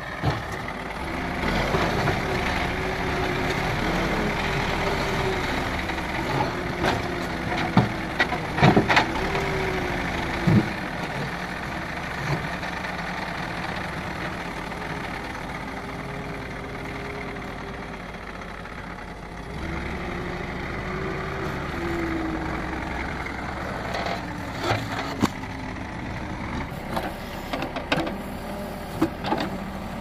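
Case 770EX backhoe loader's turbocharged 3.9-litre FPT diesel engine working under hydraulic load, its pitch rising and falling as the loader bucket lifts and pushes a boulder. Sharp knocks of rock against the steel bucket come in a cluster about eight to eleven seconds in, and again near the end.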